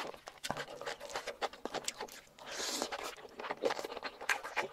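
Close-miked wet chewing and smacking of saucy boneless chicken feet: a quick, irregular run of mouth clicks and smacks, with a brief breathy hiss a little past halfway.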